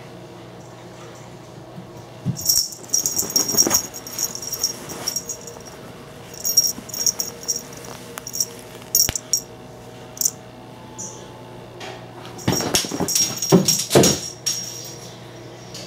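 A kitten playing fetch, with bright jingling rattles coming in three bursts as she runs and carries her toy, and a few soft knocks during the last burst.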